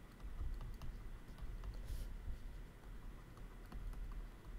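Faint clicks and scratches of a stylus writing on a drawing tablet, with one brief scratchy stroke about two seconds in.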